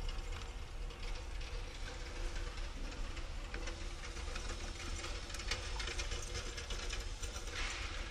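Steady low mechanical rumble, with a few faint light clicks as a test-light probe is touched to the blade-fuse terminals in a truck fuse box.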